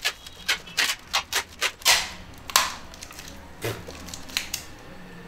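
Plastic courier mailer bag crinkling and crackling as it is handled and pressed, a quick run of sharp crackles over the first couple of seconds, then quieter handling with a few soft knocks.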